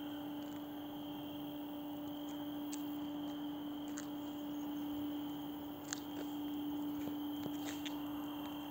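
Steady outdoor night ambience: a constant low hum with a fainter steady high-pitched drone above it, and a few soft clicks.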